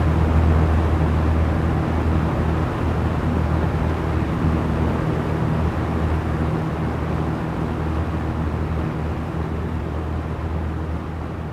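Small electric fan running steadily: a low motor hum under an even rush of air, slowly getting quieter.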